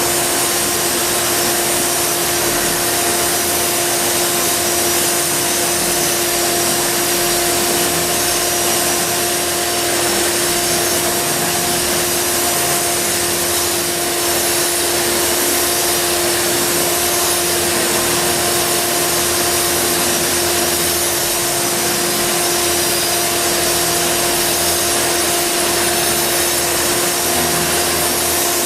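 A 6 hp Ridgid wet/dry shop vac runs steadily, pulling dust through an Oneida Dust Deputy cyclone, while a Milwaukee angle grinder with a shrouded diamond cup wheel grinds thinset off concrete. The result is a constant, even rushing grind with a steady motor hum.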